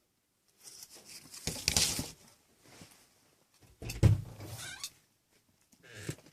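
Six-week-old kittens playing: three bursts of scuffling and rustling, the middle one starting with a thump.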